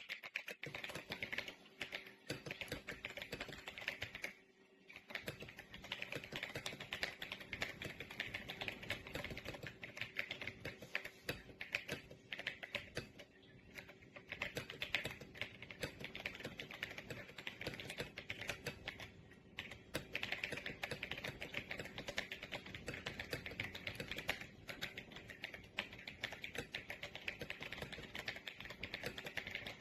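Continuous fast typing on an RK Royal Kludge S98 mechanical keyboard: a dense stream of key clacks, with short pauses about four seconds in and a couple more times later.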